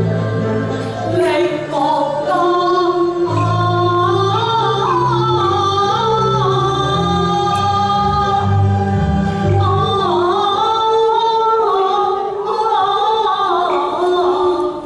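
Cantonese opera aria: one voice singing a gliding, ornamented melody with instrumental accompaniment. A low bass line sustains under the singing and drops out about ten seconds in.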